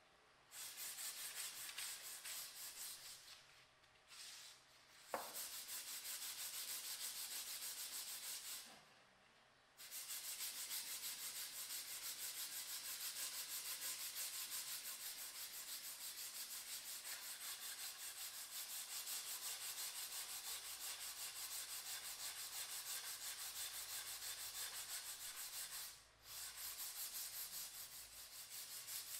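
A round wooden dowel being hand-sanded with sandpaper gripped around it: rapid back-and-forth rubbing strokes along the rod. There are short pauses about 4 and 9 seconds in and a brief one near the end, and a sharp click about 5 seconds in.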